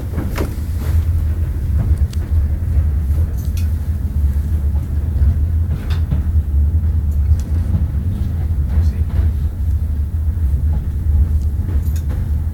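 Old wooden railway carriage running on the track, heard from inside: a steady low rumble with scattered clicks and rattles.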